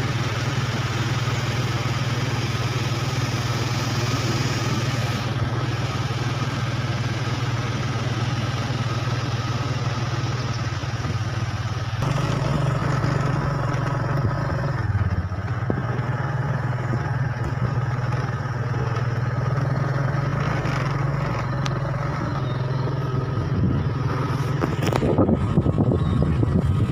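Motorcycle engine running steadily while riding, its note shifting about twelve seconds in, with a rougher, louder stretch near the end.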